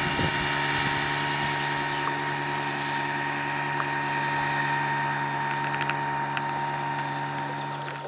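Small motorboat's outboard engine running steadily at an unchanging pitch.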